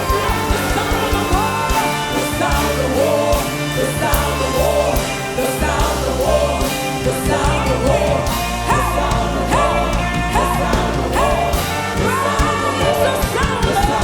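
Christian worship music: a voice singing a gliding melody over a band with a steady bass.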